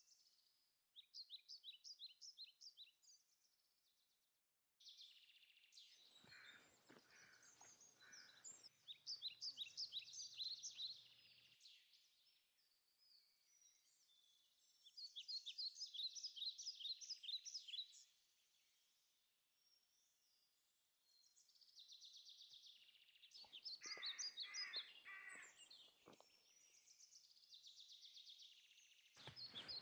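Faint woodland birdsong: several songbirds singing bursts of fast, high trilling and chirping phrases a few seconds apart.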